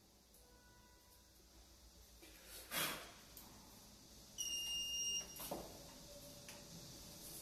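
Fibre-optic fusion splicer giving one steady, high electronic beep lasting under a second, about four and a half seconds in. A sharp click comes a little before it, and another click just after, followed by a faint steady hum.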